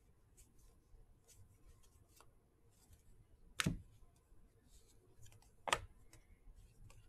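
Trading cards being flipped through by hand, giving soft repeated card clicks and rustles, with two sharp knocks about three and a half and five and a half seconds in.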